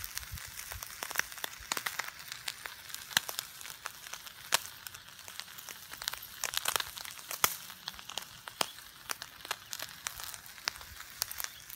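Ribeye steak searing directly on hot lump charcoal: a steady sizzle with many sharp, irregular crackles and pops.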